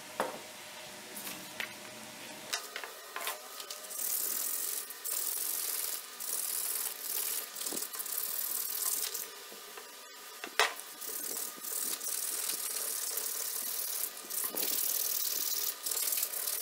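Waterproof abrasive paper rubbed back and forth over a stainless-steel kunai blade, a hissing scrape about once a second from about four seconds in. A few light handling clicks come before the strokes start, and one sharp click in the middle.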